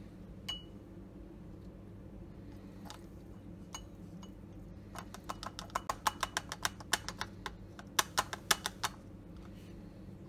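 Light, irregular clicking and tapping of plastic against glass as salicylic acid powder is tapped through a plastic funnel into a glass Erlenmeyer flask: a few single taps, then a quick run of them about five seconds in, over a steady low hum.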